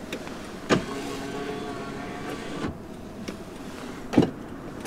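Lada Granta's front electric window motor running as the glass moves, a steady hum that stops about two and a half seconds in. Sharp clicks about a second in and twice near the end.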